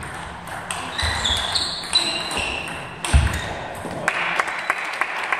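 Table tennis rally: the celluloid/plastic ball clicking off the bats and the table, with shoes squeaking on the sports hall floor and a couple of heavy footwork thuds. The rally ends about four seconds in, followed by a run of quick clicks.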